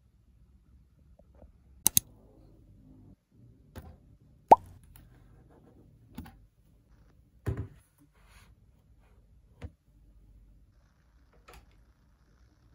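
Things being handled and set down on a desk: a handful of separate sharp taps and knocks a second or two apart. The loudest, about four and a half seconds in, has a brief ring, and a duller double knock comes a few seconds later.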